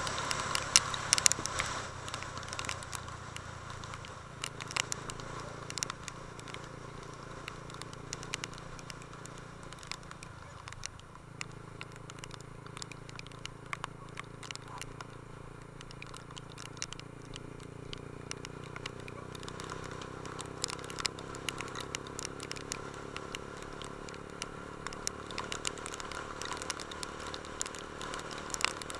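Honda CB150 Invicta's single-cylinder four-stroke engine running while riding, a steady low hum that changes pitch a couple of times. Irregular crackles and ticks run over it, loudest in the first couple of seconds.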